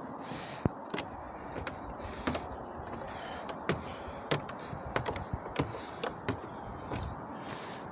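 Footsteps climbing a flight of stairs: a string of irregular sharp taps, about one or two a second.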